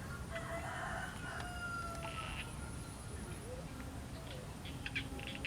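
A rooster crowing, one call of about two seconds, followed near the end by a few sharp clicks.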